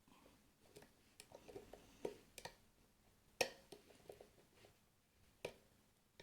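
Faint, irregular metallic clicks and ticks of a lock pick working the pins of a pin-tumbler rim cylinder under very light tension, as the pins are pushed toward a false set. The sharpest click comes about three and a half seconds in.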